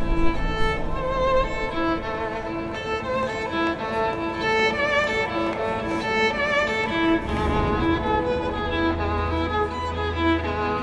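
Solo violin playing a melodic line with repeated notes, with a low steady drone coming in underneath about seven and a half seconds in.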